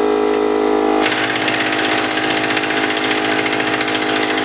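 Ingersoll Rand air impact gun driving a scissor jack to lift the car: about a second in it breaks into a rapid, continuous hammering rattle. A steady droning tone runs underneath throughout.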